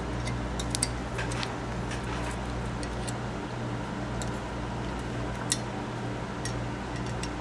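Light metallic clicks and ticks, scattered and irregular, as standoffs are unscrewed from a steel cryostat interface with a small hand tool; the sharpest clicks come about a second in and about five and a half seconds in. A steady low hum runs underneath.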